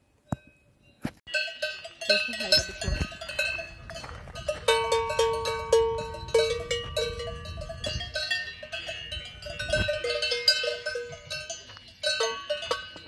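Several cowbells worn by grazing Brown Swiss cows clanging irregularly, their ringing tones overlapping. The bells start about a second in.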